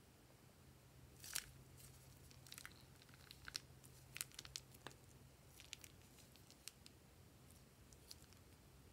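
Plastic piping bag crinkling as hands squeeze and flatten it: scattered faint crackles and clicks, the loudest about a second and a half in.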